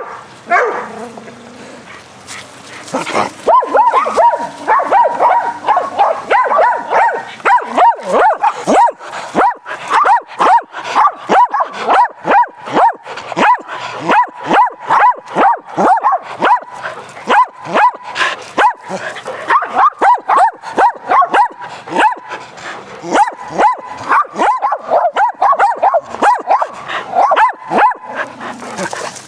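Dogs barking rapidly and repeatedly while playing fetch, close by, at roughly two to three barks a second. The barking breaks off for a short lull at the start and picks up again about three seconds in.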